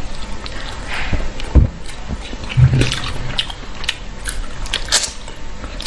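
Close-up eating sounds: wet chewing and sucking at a giant freshwater prawn, with many small clicks and crackles and two low thumps in the first half.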